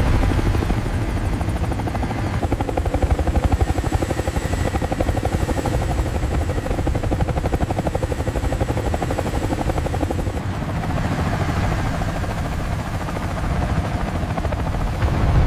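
Heavy-lift helicopter rotor chop: a rapid, even beating over a deep rumble, with a thin high whine until about ten seconds in.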